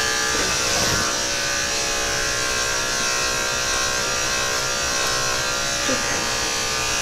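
Andis AG Super 2-Speed electric dog clippers running with a steady, unbroken buzz while clipping a West Highland white terrier puppy's coat.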